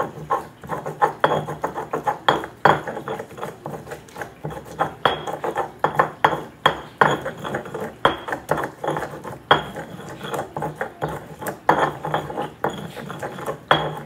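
Irregular clinks and knocks of kitchen utensils against dishes and pans, several a second, some followed by a brief ringing.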